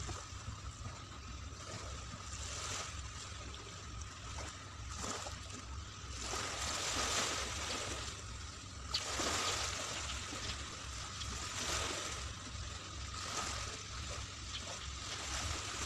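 Small waves washing up on a sandy beach, the wash swelling and easing every couple of seconds, over a steady low hum.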